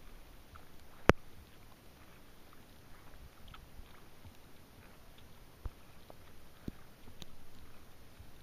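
Scattered raindrops ticking on a kayak's wet deck and the camera, a few irregular sharp ticks with one much louder about a second in, over a quiet background hiss.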